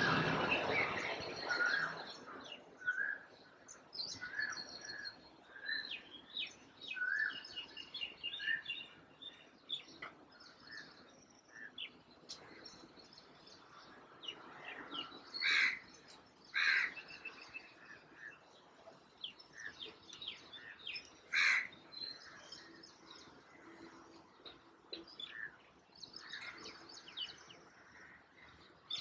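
Morning birdsong: several small birds chirping and twittering in short repeated notes. Three louder, harsher calls stand out about halfway through.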